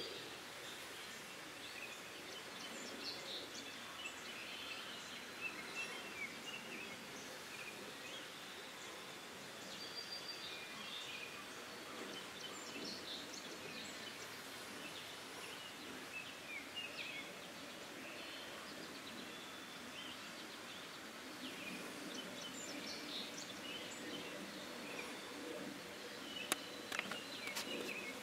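Small birds chirping and singing over a quiet outdoor background, with a few sharp clicks near the end.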